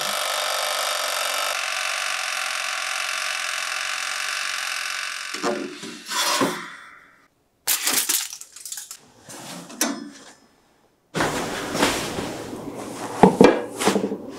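Aladdin toaster oven's mechanical timer dial being turned, giving a steady whirr for about five seconds. Then come rustling clatter as aluminium foil is laid over the loaf pan, and near the end the metal baking tray and pan being handled.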